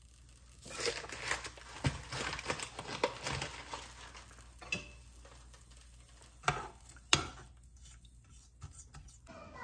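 Kitchen utensils and dishes clinking and knocking. There is a busy stretch of clatter for about three seconds, then a few single knocks.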